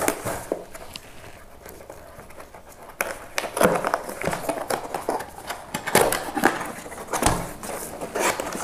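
Cardboard box being opened by hand, its end flap prised and pulled open: dry scraping and crackling of cardboard with small knocks, mostly from about three seconds in.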